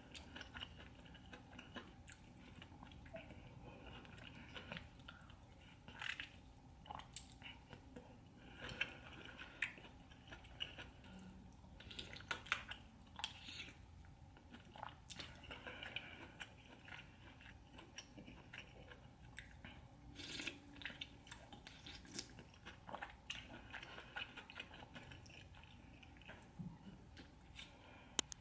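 Quiet close-miked eating sounds: a person chewing and biting into sauced seafood, with irregular wet smacking and small clicks throughout.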